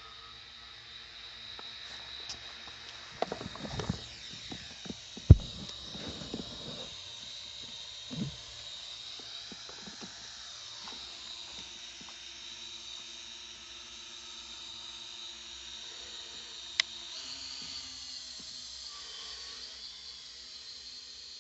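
Steady high-pitched whine of small electric motors, with a few knocks and thumps in the first eight seconds, the loudest a sharp knock about five seconds in, and one click near the end.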